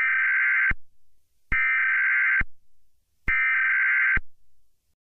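Emergency broadcast alert signal: three identical electronic tone bursts, each just under a second long, about a second apart, like the digital header bursts that begin an Emergency Alert System message.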